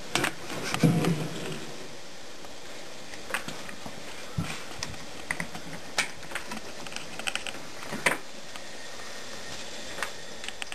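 Steady hiss of a camp gas stove burner heating a kettle that feeds steam into a wooden steam box for bending cedar canoe stems. There is a knock and clatter at the box about a second in, then scattered light clicks and ticks.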